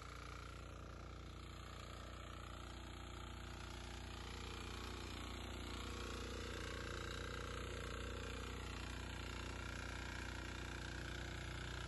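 Diesel power tiller's engine running steadily under load while its rotary tines till a stubble field, growing a little louder about five seconds in.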